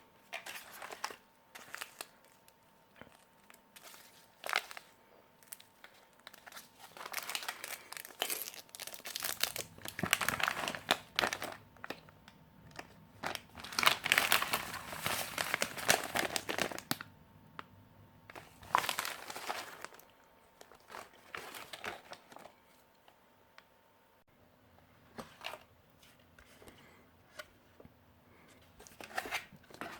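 Plastic and foil ration packaging crinkling and rustling as it is handled, in irregular bursts that are loudest and densest in the middle.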